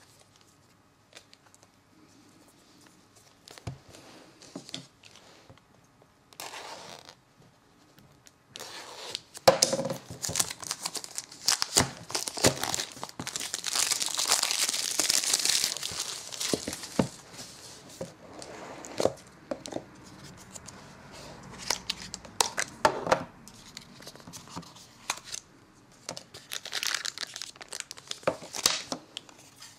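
Clear plastic shrink-wrap crinkling and tearing as it is pulled off a product box, loudest and densest about halfway through, with short taps and knocks of the cardboard box being handled and opened.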